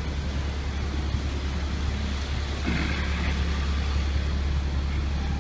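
City street traffic: vehicle engines running in stopped traffic, a steady low rumble under general road noise, with a brief higher-pitched sound about three seconds in.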